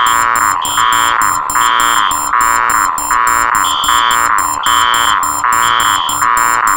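Four electronic alarms sounding at once, very loud: a harsh buzzing tone pulsing about once a second, a higher beep sounding between its pulses, and a fast stutter of short beeps running underneath.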